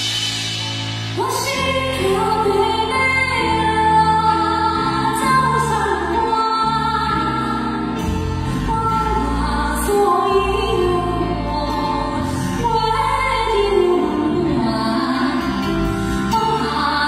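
A male singer sings a ballad live in a high register, with sustained, wavering notes and slow melodic glides, over a band of electric guitar and keyboards.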